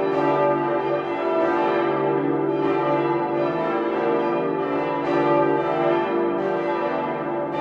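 Full peal of large church bells, several bells swinging and striking together in overlapping, continuous ringing with long-sustained tones.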